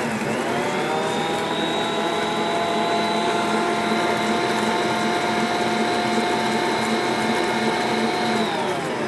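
Bosch stand mixer's motor running its wire whisks at a steady speed, beating egg yolks, with a steady whine. Near the end it is switched off and winds down, the whine falling in pitch.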